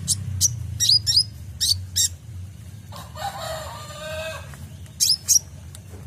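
Kolibri ninja (purple-throated sunbird) singing sharp, high chirps, about six in quick succession over the first two seconds and two more near the end. About three seconds in, a rooster crows in the background, a longer, lower call lasting about a second and a half.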